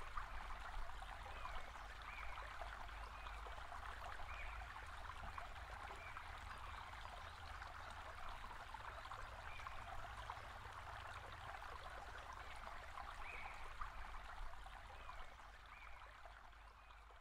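Running water, like a small stream, with faint short high chirps every second or two; it fades out near the end.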